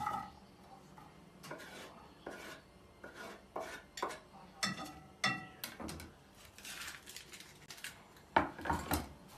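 A knife scraping and tapping chopped onion off a wooden cutting board into a frying pan: a string of knocks and scrapes, with a few short ringing metallic clinks around the middle and louder knocks near the end.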